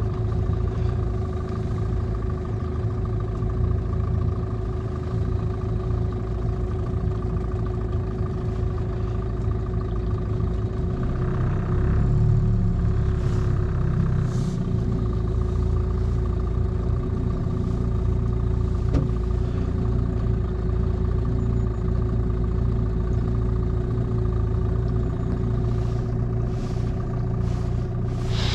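Boat's outboard motor running steadily under way, a little louder from about twelve seconds in.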